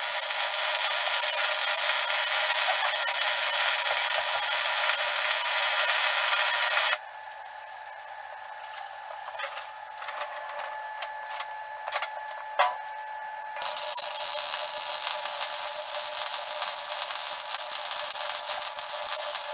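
Arc welding on steel plate: a steady sizzling crackle of the arc for about seven seconds, then a pause of several seconds with a few sharp clicks, then a second weld run of about six seconds.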